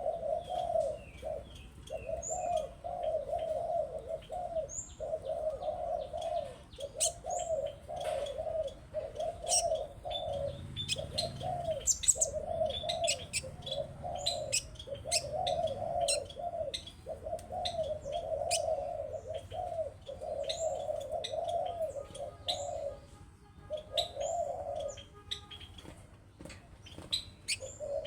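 Birds calling: a near-continuous run of low, repeated cooing notes like a dove's, with short high chirps and sharp ticks scattered over it. The cooing breaks off briefly a few times.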